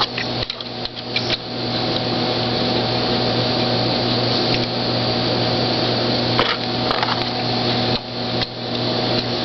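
Ilco key-cutting machine's motor running steadily with a hum and the whir of its spinning cutter, broken by a few short clicks and knocks.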